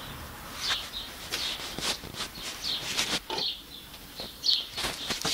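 Irregular sharp clicks and knocks of hands and tools working at the underside of a tractor, with short high chirps of small birds in between.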